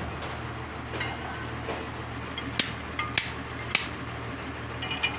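Metal tools and parts clinking and knocking together in a few sharp, ringing strikes, with a steady low hum underneath.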